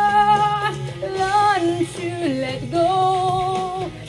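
A woman singing a vocal take into a studio microphone: a few long held notes in English with short breaks between them.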